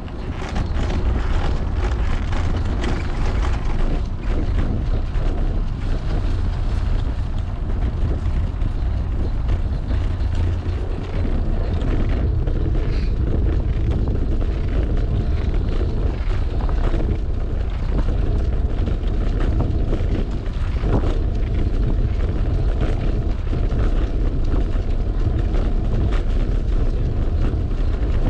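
Wind buffeting the microphone of a camera mounted on a moving fixed-gear bicycle, a steady low rumble, mixed with the tyres running over brick and hexagonal pavers and scattered light knocks from bumps in the paving.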